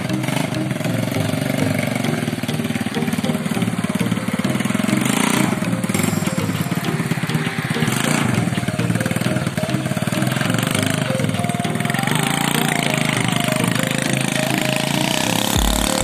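Engine of a custom mini bobber pocket bike running as the bike is ridden, its pitch rising and falling with the throttle; the bike runs without trouble after a carburettor setup.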